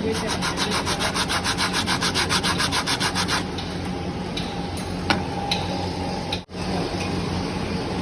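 Sandpaper rubbed rapidly back and forth over a motorcycle brake plate to clean it: a quick, even run of scraping strokes for a little over three seconds that then stops. A couple of light clicks follow.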